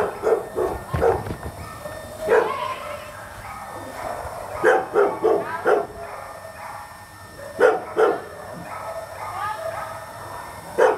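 A dog barking in short, sharp barks that come in clusters, four in quick succession about five seconds in and two more near eight seconds.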